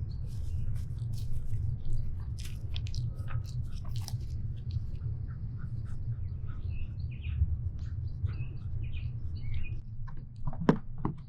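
Scattered short clicks and crunches over a steady low rumble, with faint bird chirps.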